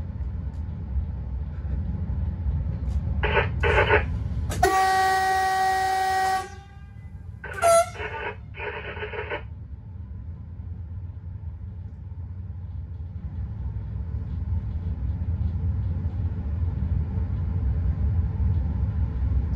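Newag Dragon locomotive's horn sounds one steady single-pitched blast of under two seconds about five seconds in, over the low rumble of the train running. Short crackly bursts from the cab radio come just before and just after the horn, and the running rumble grows louder toward the end.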